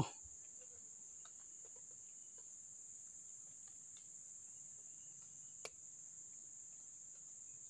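Faint, steady high-pitched insect chirring, with a single soft click about five and a half seconds in.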